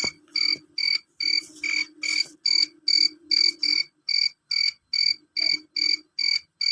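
Male cricket chirping loudly and shrilly, a steady train of short chirps a little over two a second.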